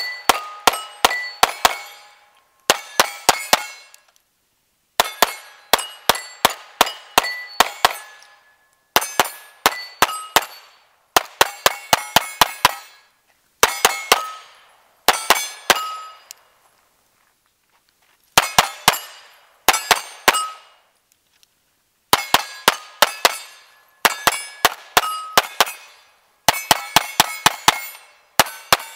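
Pistol fired in rapid strings of about four to eight shots, each hit followed by the ringing of steel plate targets. The strings come about every two seconds, with short pauses between them.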